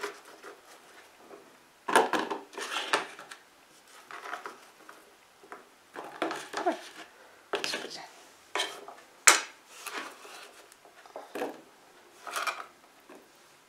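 Handfuls of diced raw potato dropped into a small bowl, clattering and knocking in a series of separate batches about a second apart, with hands gathering the cubes off a wooden cutting board; one sharper click about nine seconds in.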